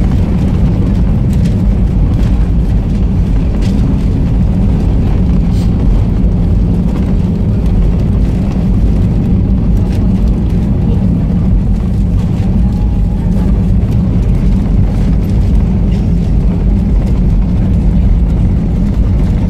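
Steady, loud low rumble in the cabin of an Airbus A320 rolling along the runway after touchdown, with a few faint clicks.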